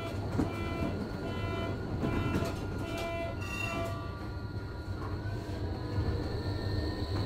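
Tatra KT4Dm tram's door warning signal beeping about twice a second, stopping about four seconds in. About a second later the tram's electric drive sets up a rising whine as it pulls away from the stop, over the low rumble of the car.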